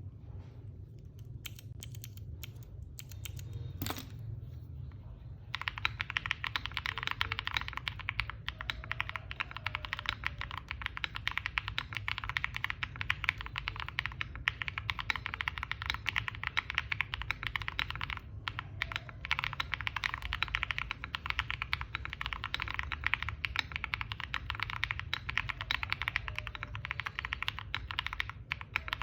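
Typing on a Sela 70 mechanical keyboard built with KTT Waverider switches, a polycarbonate plate and DMK keycaps. A few scattered keystrokes with one sharp click about four seconds in, then dense, rapid typing from about five and a half seconds on, over a steady low hum.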